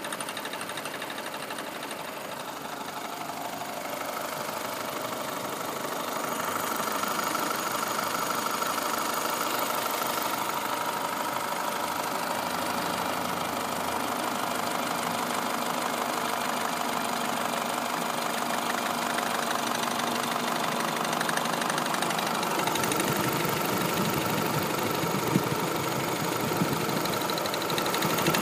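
Renault Mégane II engine running steadily with a strange noise: a steady mechanical drone with a whine over it, growing a little louder over the first several seconds.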